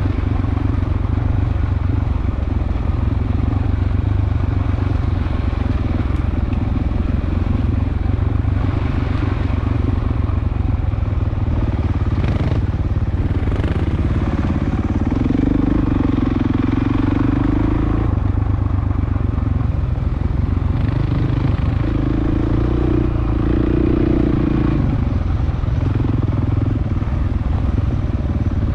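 Dirt bike engine running continuously under way, its note lifting to a steadier, higher pitch about halfway through and again a few seconds later.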